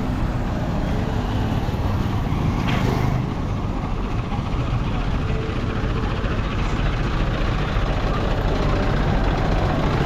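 Road traffic at rush hour: cars and trucks running past in a steady stream of engine and tyre noise.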